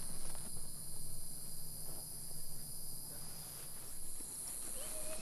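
A chorus of crickets chirping, a high, steady trill that runs on without a break over low background noise.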